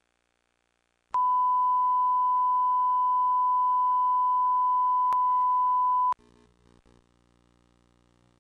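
Steady test tone, the standard 1 kHz line-up tone that goes with colour bars. It starts about a second in, holds for about five seconds with a faint click partway through, and cuts off abruptly, leaving a faint low hum.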